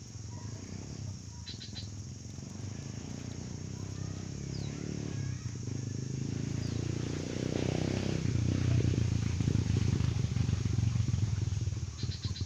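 A low engine rumble, likely a passing motorbike, builds through the middle and stays loud near the end.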